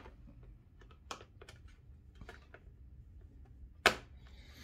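Small clicks and rattles of a power cable being handled and plugged into the back of a Huawei B525 LTE router, with one sharp click near the end.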